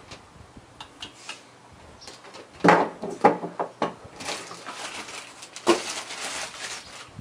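Handling noise from a small plastic electricity monitor box as its sensor leads are plugged in and it is set down on a wooden ledge. There are a few sharp knocks and clicks about three seconds in, the first the loudest, followed by rustling and scraping.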